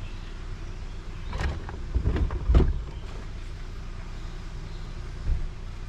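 Steady low rumble of a car driving, heard inside the cabin, with a few short knocks or rattles about two seconds in.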